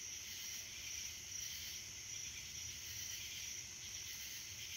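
Night insect chorus: a steady high-pitched trilling, with a thin high note pulsing on and off at an even rate over it.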